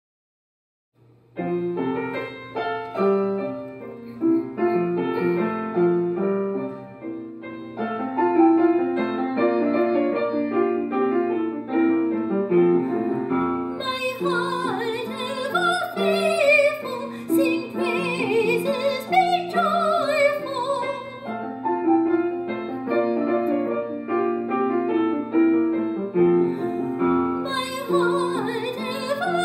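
Piano playing chords, starting about a second in. About halfway through a singer comes in with a classical-style, wavering sung melody, breaks off, and comes back in near the end over the piano.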